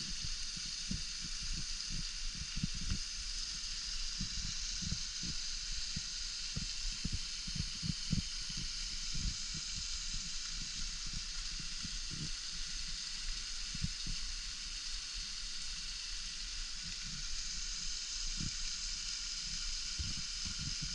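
Waterfall: a steady hiss of falling water and spray, with irregular low thumps underneath.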